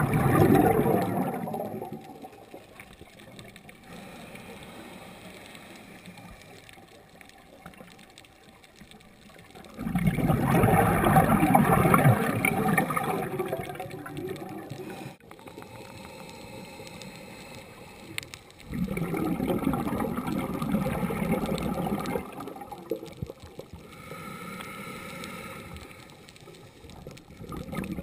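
Scuba diver's exhaled bubbles gurgling out of the regulator, recorded underwater. There are three long bursts, one at the start, one about ten seconds in and one about nineteen seconds in, with a quieter hiss between them.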